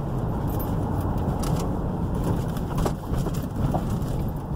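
Inside the cabin of a Ford Crown Victoria Police Interceptor moving slowly: steady low engine and tyre rumble.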